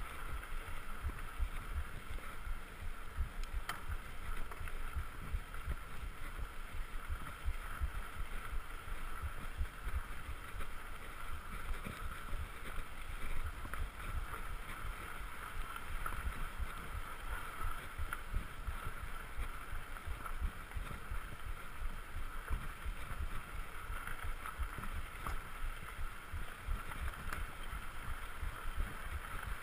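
Wind buffeting the handlebar-mounted camera over the steady rumble of a Surly Krampus mountain bike's tyres rolling on a dirt road.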